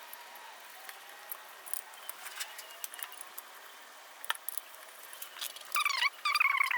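Faint, scattered metallic clicks and clinks of small bolts being handled, then near the end a few high-pitched animal calls that bend in pitch.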